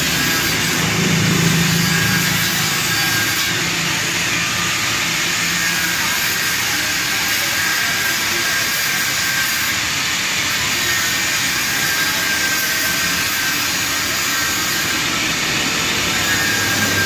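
Handheld angle grinder running steadily with its disc against the steel frame, grinding metal along the frame edge where the wire mesh lies.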